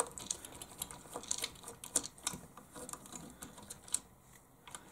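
Small screwdriver backing out the screws that hold a circuit board to a plastic toy-grade RC truck chassis: light, irregular clicks and ticks of metal on plastic.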